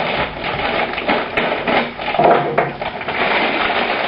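Repeated knocking and clattering as potatoes are put into a dish with the chicken.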